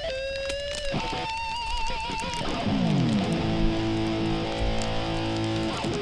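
Electric guitar playing held notes bent with vibrato, then a downward slide about two and a half seconds in that settles into a long held chord.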